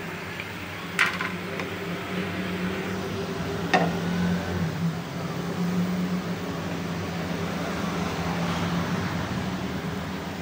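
A spoon clicks sharply against a cooking pan twice, about a second and nearly four seconds in, over a steady low hum. A pan of curry is stirred near the end.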